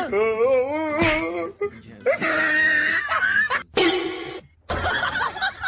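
A long, wavering wail with a strong warble, then dramatic music in the second half.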